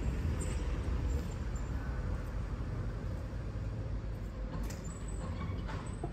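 Steady low rumble of outdoor street noise, like road traffic, with a few faint high chirps and light clicks.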